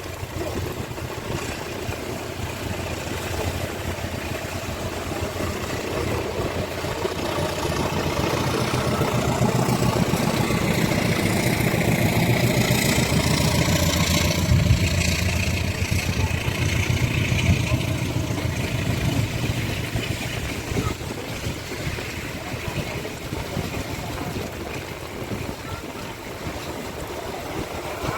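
Bus engine running close by, swelling to its loudest in the middle and easing off again as it passes.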